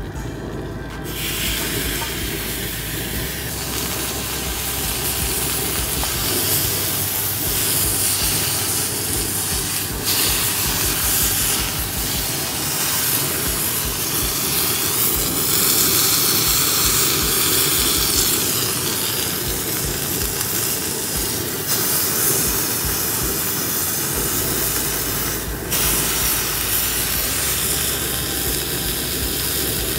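Tomahawk steak sizzling on a hot ridged cast-iron grill pan: a steady searing hiss that sets in about a second in as the meat is laid down, briefly dropping away about 25 seconds in.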